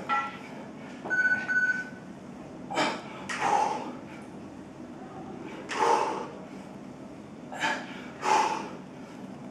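A man breathing hard through dumbbell push presses. Each rep brings a quick breath in and a forceful breath out, about every two and a half seconds, on the hardest set.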